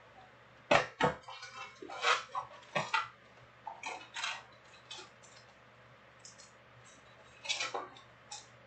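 Wrapped trading-card packs being pulled out of a cardboard hobby box and set down on a stack: a run of crinkles, taps and light clacks, busiest at the start, sparse in the middle and picking up again near the end.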